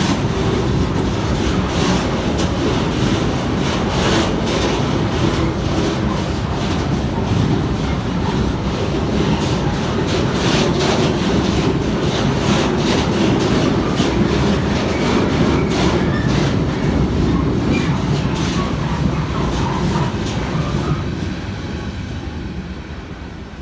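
Freight train rolling past, the wagons' wheels rumbling and clicking over the rail joints, with a faint squeal of wheels on rail now and then; the sound fades as the train moves off near the end.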